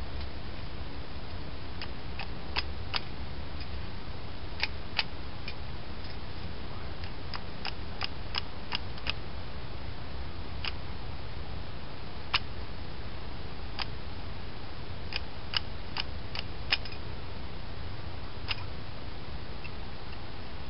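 Scattered sharp clicks and taps at irregular intervals, a few louder than the rest, over a steady low hum.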